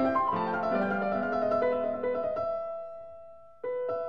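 Background piano music: a run of notes, then a held chord that fades away, with a new chord struck near the end.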